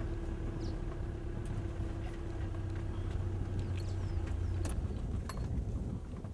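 Engine of an open safari game-drive vehicle running with a steady low hum, which stops about three-quarters of the way through.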